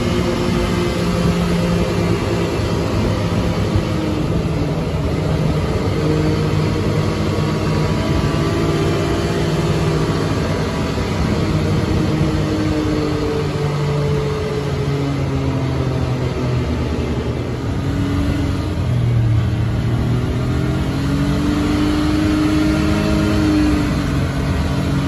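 Wildcat XX side-by-side's engine running while driving, heard from the cab, its pitch rising and falling as the throttle and speed change.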